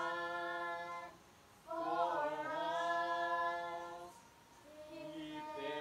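Unaccompanied singing of a worship song: slow, long held notes, with short breaks about a second in and again around four seconds.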